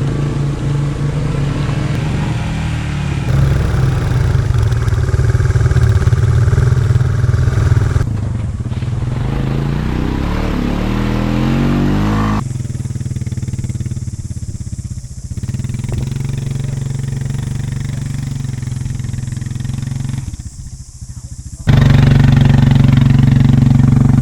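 Quad bike engine running and revving in a series of cut-together clips, its pitch rising as it accelerates about a third of the way in; the sound changes abruptly at each cut.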